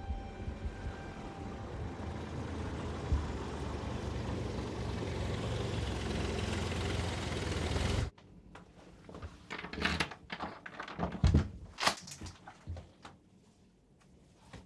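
A car driving close by, its engine and tyre noise growing steadily louder, then cutting off abruptly about eight seconds in. A run of sharp clicks and knocks follows as a door's lock and handle are worked by hand.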